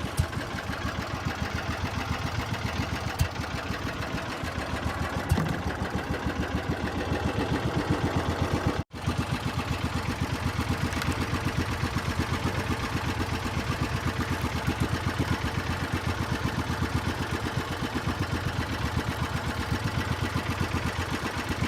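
Small boat engine running steadily with a rapid, even pulse. The sound cuts out for an instant about nine seconds in.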